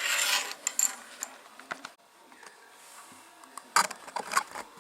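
Small plastic building bricks rattling and clicking as they are handled and sorted, with a rustle at the start and a quick run of clicks about four seconds in.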